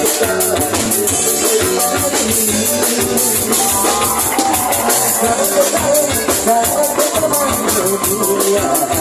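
A band playing a song, with a drum kit keeping a steady beat under guitar.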